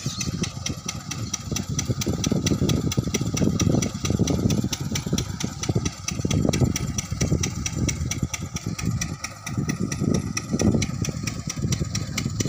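Tubewell pump engine running steadily, with a fast, even ticking rhythm and an irregular low rumble under it.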